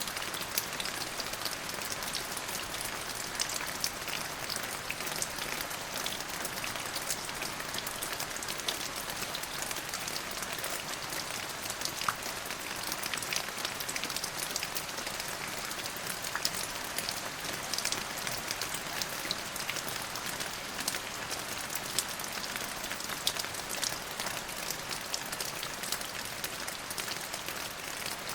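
Steady rain falling, an even hiss with many individual drops pattering and ticking on a surface.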